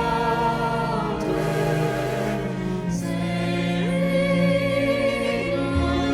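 Slow, solemn background music with a wordless choir holding long, sustained chords that shift every second or two.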